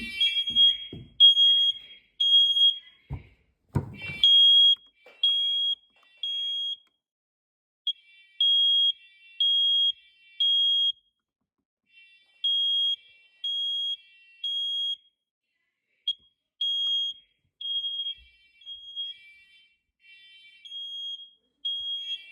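Smoke alarm sounding in the three-beep evacuation pattern: three high-pitched beeps, a pause, then three again, with the beeps turning shorter and uneven later on. It keeps sounding even though the system was meant to be silenced. A couple of thumps come about three and four seconds in.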